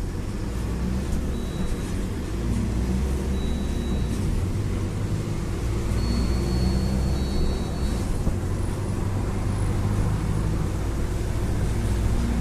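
Mercedes-Benz OF-1721 BlueTec 5 bus's diesel engine running with a steady low drone. A faint high whistle comes and goes in the middle.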